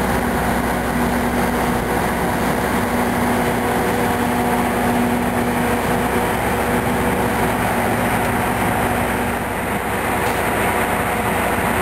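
Heavy demolition machinery running steadily, a continuous engine drone with a low hum that drops out about nine and a half seconds in.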